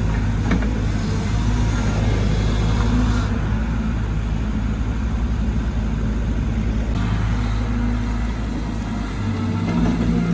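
Caterpillar 313GC excavator's diesel engine running steadily as the machine digs, with a sharp knock about half a second in and the engine pitch rising near the end.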